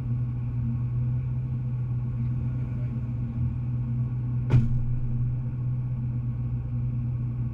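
Rally car engine idling steadily, heard from inside the cabin while the car waits stationary in a queue. A single sharp knock about halfway through.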